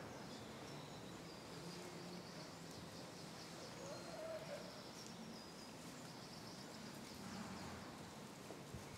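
Faint outdoor background noise with thin, high chirping calls repeating through the first half.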